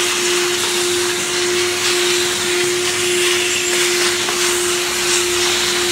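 Vacuum cleaner running, its hose nozzle sucking up acrylic chips from a freshly cut sheet: a steady rushing hiss over a steady motor hum.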